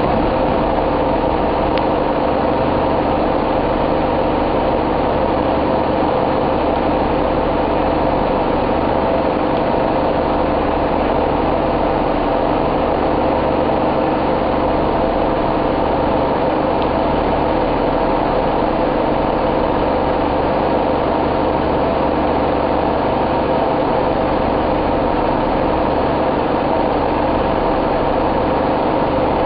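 A train's engine idling steadily: a constant low hum with a few held tones that do not change.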